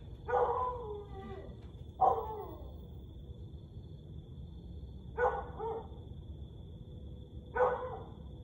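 Husky giving four short howling barks, each under a second long and falling in pitch, spaced about two to three seconds apart.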